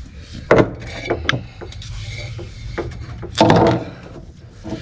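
Irregular knocks and scraping of things being handled and set down, the loudest a longer clatter about three and a half seconds in, over a low steady hum.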